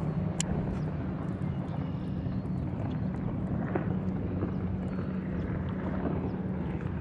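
Steady low drone of a distant boat motor carried over the water, with water lapping against the kayak.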